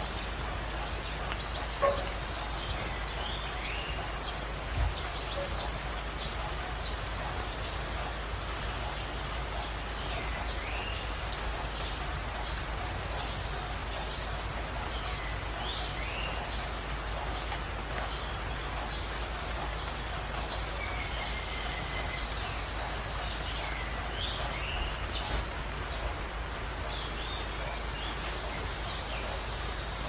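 Songbird calling over a steady rush of water: short, very high, rapidly trilled calls repeat every two to four seconds, with fainter, lower whistled notes that slide down between them.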